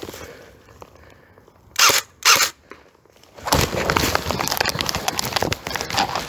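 Two short, loud bursts from an airsoft AK74 electric rifle, about half a second apart, a couple of seconds in. Dense crackling and rustling of movement through dry forest undergrowth follows.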